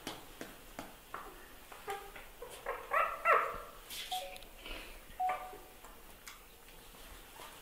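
Short, high whimpering calls and squeaks from a dog and a baby monkey at play, a quick run of them about three seconds in and a few single ones after, with light clicks in between.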